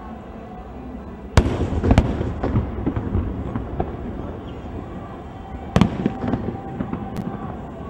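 Aerial fireworks shells bursting: two loud booms about a second and a half in, half a second apart, then crackling and smaller pops. Another loud boom comes near the six-second mark, followed by more scattered pops.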